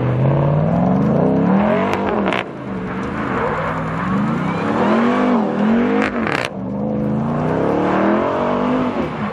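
Supercharged 6.2-litre V8 of a 2021 Ram 1500 TRX revving hard over and over, its pitch swinging up and down as the truck spins donuts on loose dirt. Two short sharp noises, about four seconds apart, come just as the revs drop.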